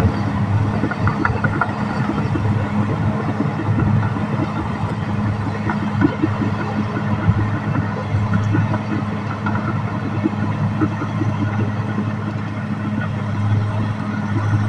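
Caterpillar D6R XL bulldozer's diesel engine running at a steady speed, with irregular clanks and rattles throughout.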